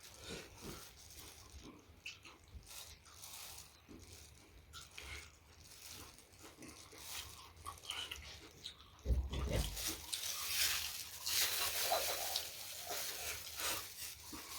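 Close-miked chewing and biting of food, soft at first with scattered small clicks, then louder from about nine seconds in, starting with a low thump.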